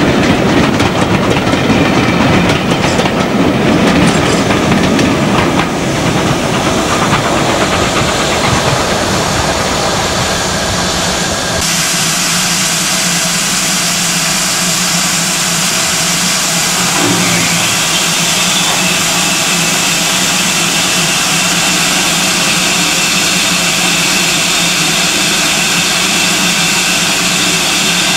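Passenger coaches of a steam-hauled train running past, wheels clattering rhythmically over the rail joints. About twelve seconds in, the sound changes abruptly to a steady hiss of steam from a GWR Hall-class locomotive standing at a signal.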